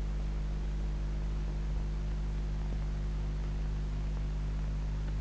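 Steady electrical mains hum with a faint hiss underneath, the background noise of an old film soundtrack; no other sound.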